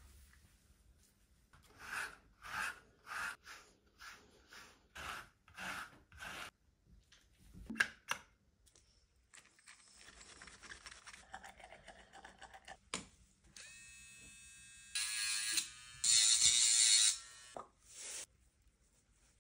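A rubber grooming brush rubbing over a short-coated dog's fur in quick even strokes, about one every 0.6 s, then softer scratchy rubbing and a click. Near the end come two loud, squeaky scrapes.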